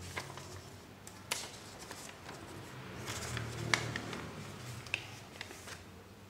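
Sheet of paper being handled and folded, with crinkles and several sharp crackling clicks as it is creased, the loudest a little past the middle.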